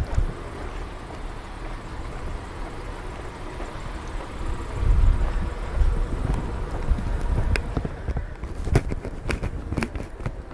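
Outdoor street ambience: a low rumble that swells about halfway through, then a run of sharp, irregular taps over the last few seconds.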